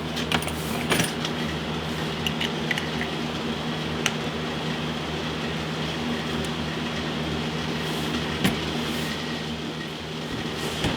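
Steady machine hum with several even low tones, with scattered light clicks and clinks over it.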